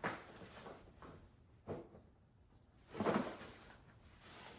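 A few short knocks and clicks of high-chair parts being handled, with a louder, longer knock about three seconds in.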